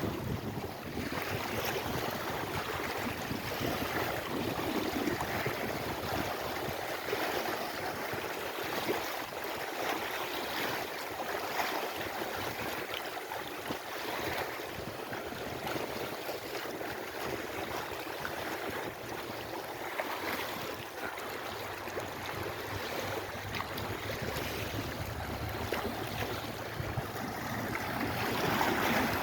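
Lake Erie waves washing in, a steady rush of water that swells and eases, louder near the end.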